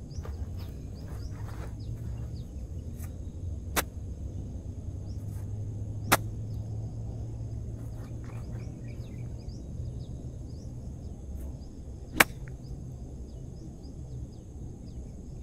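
A golf iron strikes the ball with one sharp click about twelve seconds in, after two fainter clicks earlier. Birds chirp and insects drone over a low rumble.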